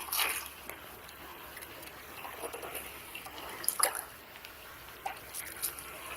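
Shallow water trickling and splashing, with a few sharp knocks about four seconds in.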